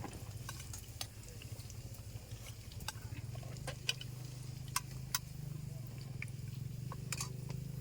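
Scattered light clicks and clinks of utensils against plates during a meal, over a steady low hum.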